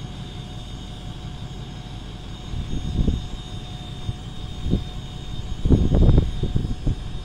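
Dump truck's engine running steadily with a faint steady whine, and wind buffeting the microphone in irregular gusts from about two and a half seconds in, loudest about six seconds in.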